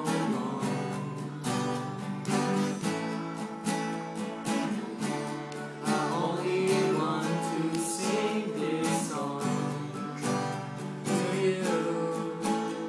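Acoustic guitar strummed in a steady rhythm: the instrumental passage of a slow ballad, with a melody line over the chords.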